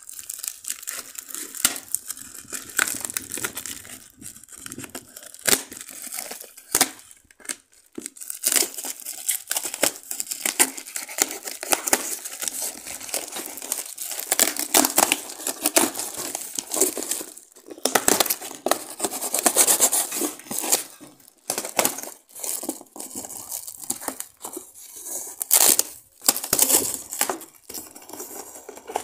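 Brown packing tape and plastic wrapping being cut and torn off a cardboard parcel, with continual crinkling, rustling and sharp ripping sounds; the cardboard flaps are pulled open near the end.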